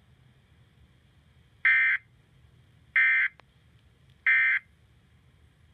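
Emergency Alert System end-of-message data tones: three short, buzzy bursts of SAME digital code about 1.3 seconds apart, signalling that the warning message is over.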